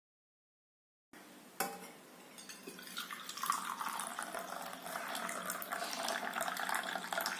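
Hot black coffee being poured into a glass: a short clink about a second and a half in, then a steady splashing stream of liquid that gets louder and rises in pitch as the glass fills.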